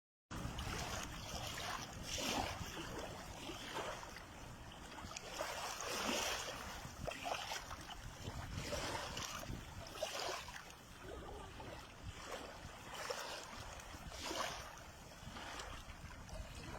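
Lake water splashing and lapping in repeated washes every second or two, over a low wind rumble on the microphone.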